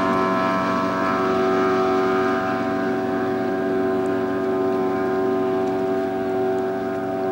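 115 HP Evinrude outboard on an Anytec 530 SPD boat running at speed, a steady, high engine note of many even tones over the rush of the hull, growing slightly fainter as the boat pulls away.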